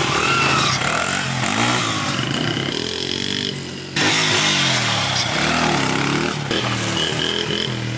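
Small single-cylinder dirt bike engine revving as the bike pulls away and accelerates. Its pitch rises and drops back several times, and it gets louder about halfway through.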